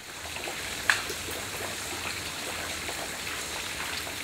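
Creek water running over rocks, a steady rushing hiss, with one short sharp click about a second in.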